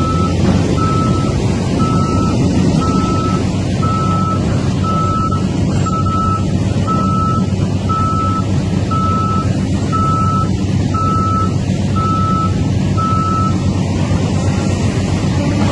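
A heavy vehicle's engine running steadily while its reversing alarm beeps about once a second, a single-pitched beep that stops near the end.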